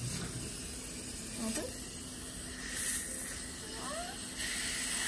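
Dental suction tube hissing at a child's mouth, briefly about three seconds in and again steadily from about four and a half seconds on.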